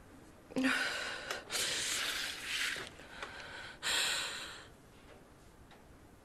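A woman's audible, uneven breathing, about four breaths in the first five seconds, the sharpest and loudest one about four seconds in, then quiet.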